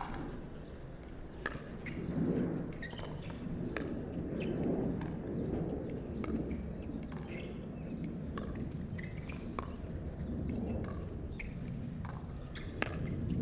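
Pickleball paddles striking the plastic ball in a long rally: a string of sharp pops, roughly one every half second to second, over a low crowd murmur.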